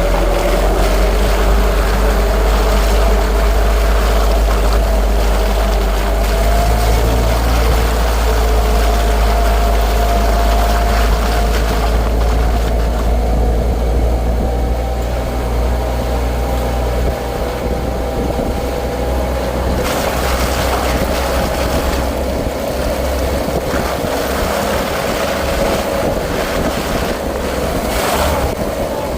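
Vintage Jeep CJ driving, with a steady low engine and road rumble under a few held whining tones that drift slightly in pitch. The rumble eases a little about halfway through.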